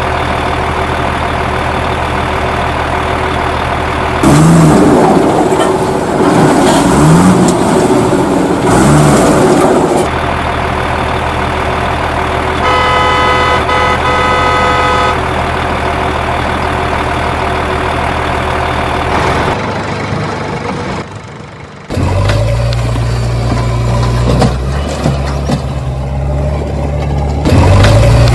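Vehicle engine sounds running steadily, with a stretch of revving that rises and falls in pitch several times early in the middle. A horn sounds for about two and a half seconds near the middle, and later a lower engine note takes over.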